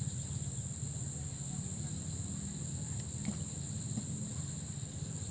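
Steady high-pitched insect chorus over a low steady hum, with two faint clicks about three and four seconds in.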